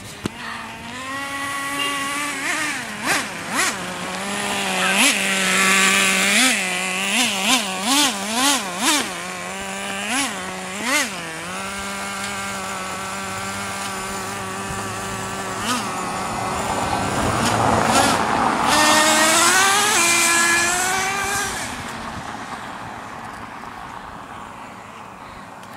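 Small two-stroke engine of a gas-powered RC car, revved in a quick series of short blips, then running steadily. Near the end it climbs in pitch and swells loudest as the car speeds up and comes close, then fades away.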